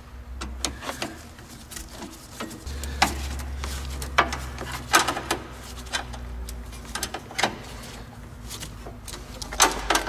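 Irregular clicks, knocks and rustles of gloved hands working wiring and plastic connectors down beside a car battery in an engine bay. A low rumble runs underneath from about three seconds in.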